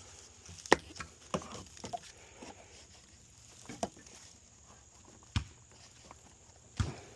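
About six scattered light knocks and clicks of things being handled, the sharpest about a second in, over a faint steady low hum.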